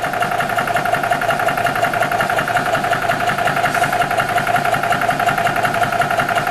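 Air Venturi RovAir personal high-pressure compressor running steadily with a fast, even pulsing beat, building pressure from about 3,000 toward 4,000 PSI.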